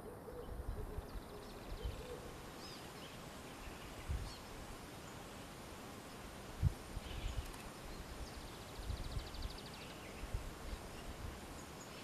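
Faint outdoor ambience: a few faint high bird chirps and, twice, a faint rapid ticking trill, with low thumps of wind on the microphone now and then.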